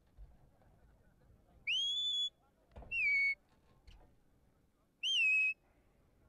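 A sheepdog handler's whistle commands to a working border collie: three short, clear blasts, the first rising and then held, the second falling, the third a quick rise and fall.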